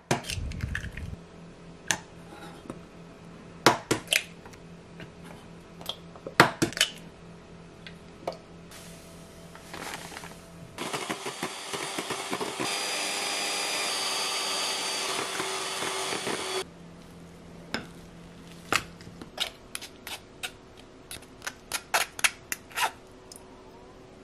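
An electric hand mixer whirs steadily for about six seconds in the middle, whipping egg whites into meringue in a stainless steel bowl; this is the loudest sound. Before and after it come scattered sharp clinks and knocks of bowls and utensils being handled.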